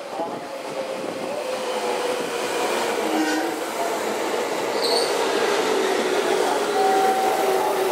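JR West 221 series electric train pulling into a station and slowing, its cars running past close by and getting louder, with a whine that slowly falls in pitch as it slows. A brief high squeak comes about five seconds in.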